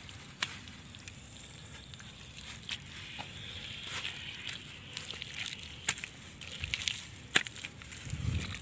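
A hand pressing and packing wet mud over a rat hole: scattered crackles and clicks of soil, with a low thump near the end.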